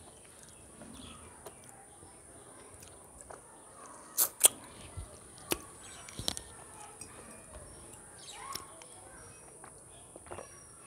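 Close-miked eating by hand: a few sharp mouth smacks and clicks while chewing, loudest as a quick pair a little under halfway through, with fingers wiping food off a stainless steel plate.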